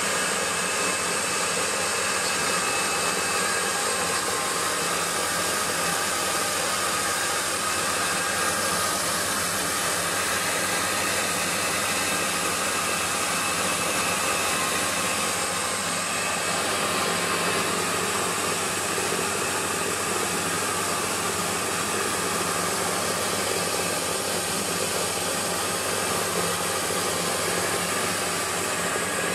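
Small electric rice milling machine running as it mills rice, with the milled grain pouring from its outlet chute. It makes a steady, loud whirring hiss with a few faint steady tones in it.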